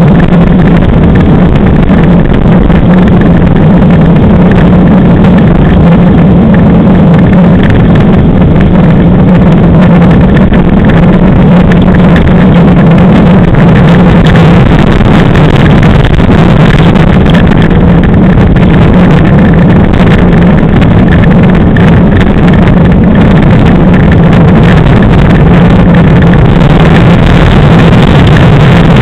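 Class 5 land yacht under sail at speed: a steady loud rush of wheels rolling over hard, flat ground and wind on the microphone, with a low steady hum under it.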